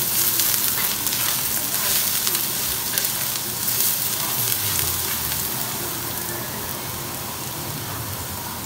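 Hot oil sizzling in a pan at the start of a ginger and soybean-paste stir-fry. It is a steady frying hiss that slowly fades, with a faint click or two of stirring.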